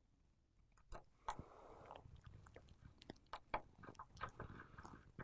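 Faint, irregular small clicks and taps of a small metal holder bracket and tools being fitted inside an opened iPhone 7 Plus, with a short scrape about a second and a half in.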